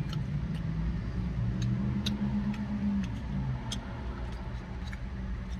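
Low steady hum of a car engine, fading slightly about three seconds in, with faint irregular clicks of chewing close to the microphone.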